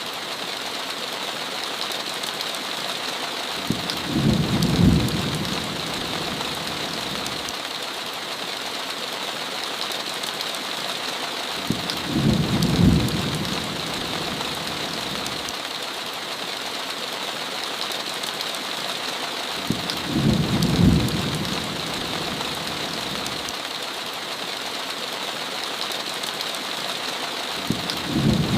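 Heavy rain falling steadily on a window, with a short low thunder rumble about every eight seconds, four times over, each briefly the loudest sound.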